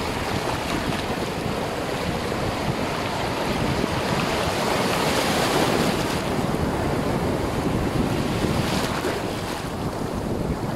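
Ocean surf washing through the shallows and waves breaking, heard close to the water, with wind buffeting the microphone; the rush swells a little louder about halfway through.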